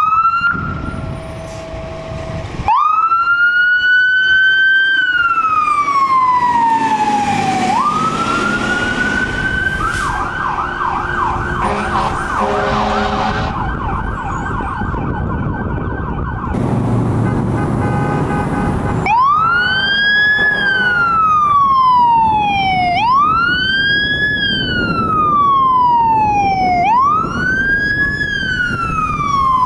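Electronic emergency-vehicle sirens. One wails, rising and falling slowly, then switches to a fast yelp. After that a siren wails in steady cycles of about four seconds, quick up and slow down, over the rumble of the vehicle's engine.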